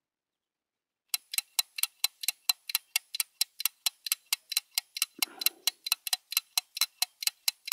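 Clock ticking sound effect, even and quick at about four ticks a second, starting about a second in out of dead silence. A brief soft rustle about five seconds in.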